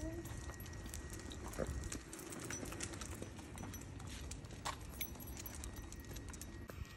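A large dog's claws and paws clicking irregularly on asphalt as it walks on a leash, over a low rumble that drops away about two seconds in.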